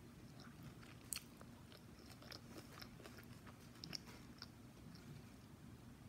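Quiet close-up chewing of a crispy fried, breaded food, with small crunches and wet mouth clicks; the sharpest crunch comes about a second in, another near four seconds.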